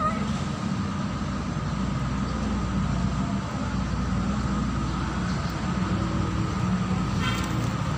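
Steady low mechanical rumble, like an engine or traffic running nearby, with a thin steady whine above it.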